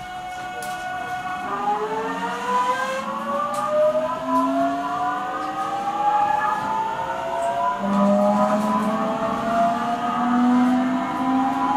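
Traction motor and inverter whine of a JR 373 series train car (KuMoHa 373-11, MT68 motors) under power. Several tones climb together in pitch as the train gathers speed, over the low running drone. This car is known for an unusually strong abnormal running noise.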